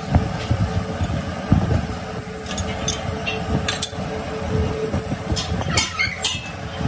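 Metal lathe running with a steady hum while a truck flywheel is clamped in its chuck and set turning. Sharp metallic clinks come a few seconds in and again as a quick cluster near the end.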